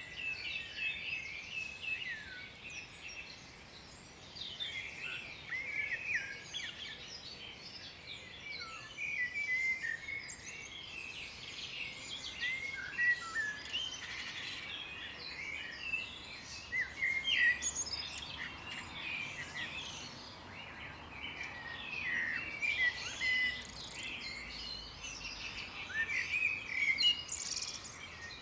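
Several songbirds singing at once: a continuous chorus of short, high chirps and quick trills overlapping one another.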